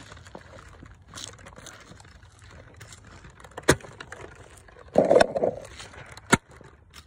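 Plastic clacks and snaps of a Nerf blaster being primed and fired: a sharp snap about three and a half seconds in, a short clattering burst at about five seconds, and another sharp snap past six seconds.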